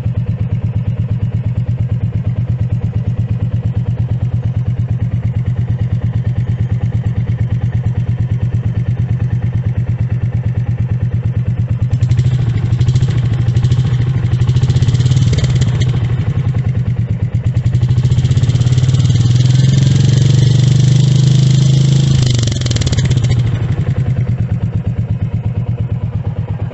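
Royal Enfield Meteor 350's single-cylinder engine idling with a steady thump from the exhaust. Its catalytic converter has been removed to leave the box a hollow expansion chamber. About twelve seconds in, the throttle is blipped a few times, then held in a longer rev that rises and falls before it settles back to idle.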